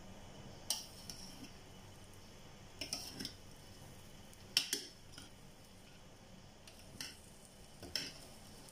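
Metal spoon clinking and scraping against the side of a stainless steel pot while mixing rice: about half a dozen sharp clinks at irregular intervals, the loudest a little past the middle.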